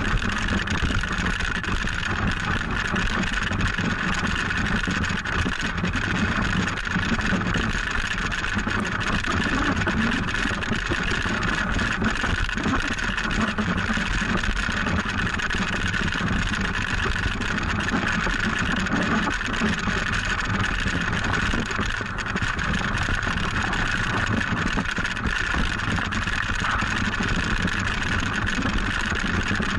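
Wooden toboggan sliding downhill over packed snow: a steady rushing, scraping noise from the runners on the snow, mixed with the rush of air past the sled-mounted microphone.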